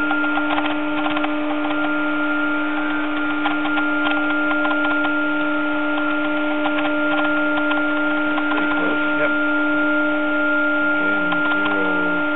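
A steady, unchanging machine hum made of several fixed tones, with scattered light clicks throughout and faint voices near the end.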